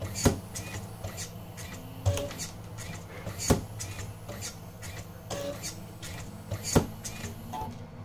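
Homemade Arduino wire cutting and stripping machine working through a batch: motors hum steadily as they feed the wire, and the blades close with sharp clicks every one to two seconds. The three loudest clicks come about three seconds apart, one for each finished piece.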